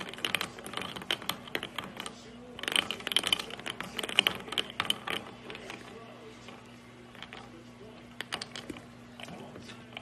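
Golden retriever puppy lapping water from a drinking glass: quick runs of wet clicks as its tongue strikes the water and the glass. The clicking is densest in the first half and thins to scattered clicks after about halfway.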